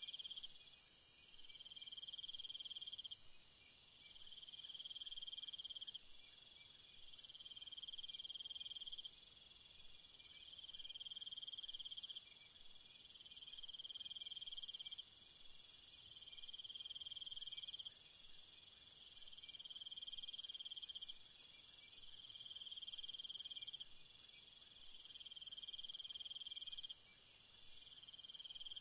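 Chorus of night insects: one trill repeats in phrases of about one to two seconds with short breaks between, over a steady high-pitched buzz from other insects.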